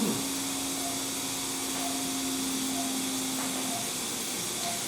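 Operating-room background: a steady hiss with a short, quiet beep about once a second, typical of a patient monitor's pulse tone, and a low steady hum that stops a little past halfway.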